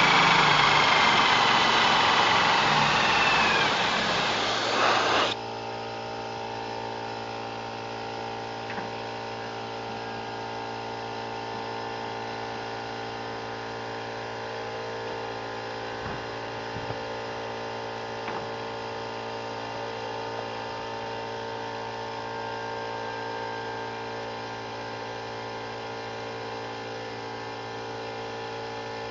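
Corded hammer drill with a high-speed steel step bit cutting through steel angle, its whine sliding down in pitch under a loud hiss of compressed air blown on the bit to cool it, for about five seconds before everything stops at once. After that a quieter steady machine hum runs on.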